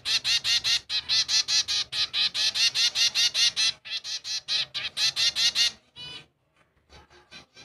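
Zebra finch fledgling begging while being hand-fed from a syringe: a rapid run of short, high calls, about six a second, that breaks off near the end, leaving a few fainter calls.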